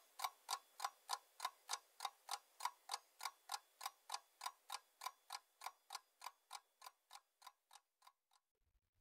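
Clock ticking as a quiz timer counting off guessing time, about four even ticks a second, growing fainter and stopping about eight seconds in.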